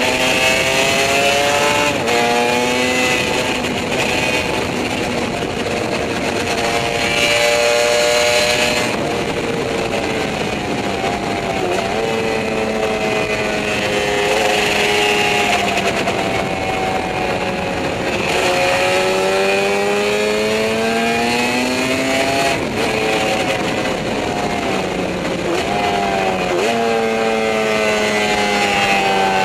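Yamaha 750 two-stroke racing motorcycle engine heard on board at speed, its pitch climbing through each gear and dropping back at the shifts, easing off for corners and pulling hard again. Wind rush runs under it.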